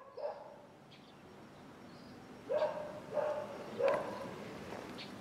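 A dog barking: a short bark at the start, then three barks in quick succession a little past the middle.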